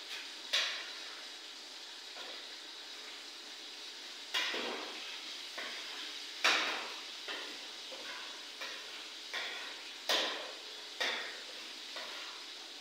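A metal spoon stirring in a large metal cooking pot on a gas stove, knocking against the pot's side and rim at irregular intervals, about ten clinks with short ringing tails. A steady hiss runs beneath.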